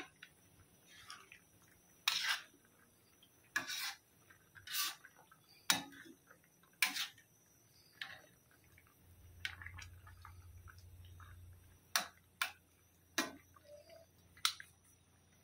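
Metal ladle knocking and scraping against a stainless steel pan while stirring a thick curry: about ten separate clinks and short scrapes, irregularly spaced.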